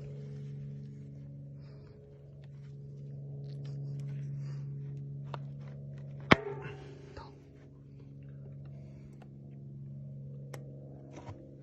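Tubeless tyre plug tool being worked into a tyre: scattered small clicks and one sharp knock about six seconds in, over a steady low hum.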